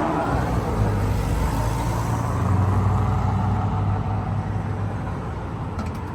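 Dodge Charger driving, with a steady low engine drone over road noise that eases off over the last couple of seconds.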